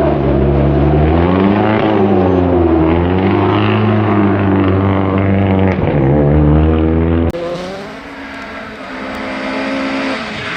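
Rally car engine revving hard, its pitch rising and falling as the car is driven flat out. At about seven seconds it cuts abruptly to a quieter, steadier engine note from another rally car.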